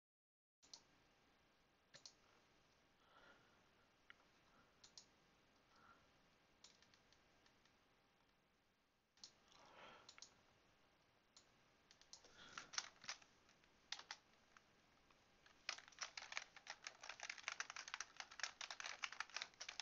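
A few scattered computer mouse clicks, then a fast run of keyboard typing during the last four seconds or so.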